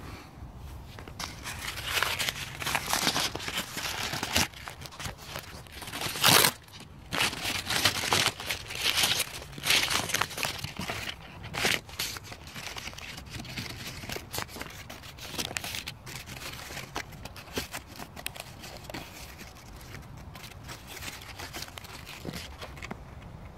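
Crumpled paper crinkling and rustling close to the microphone in irregular bursts. It is loudest through the first half and softer, with fine crackles, in the second half.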